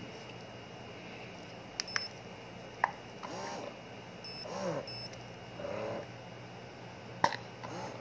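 Spectra wearable breast pump being switched on: a few button clicks and two short high beeps, then its motor running in expression mode, a whir rising and falling in pitch with each suction cycle, about once every 1.2 seconds.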